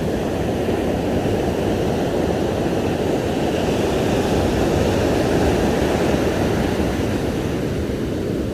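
Steady rushing noise of ocean surf breaking on a sandy beach, mixed with wind buffeting the microphone, heaviest in the low end and even throughout.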